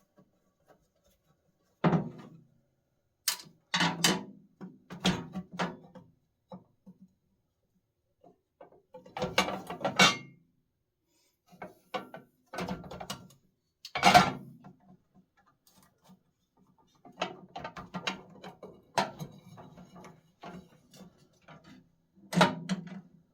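Clunks, clicks and rattles of parts being handled in a solvent parts washer as the pump's filter is taken off and turned over. They come in several irregular spells with short pauses between.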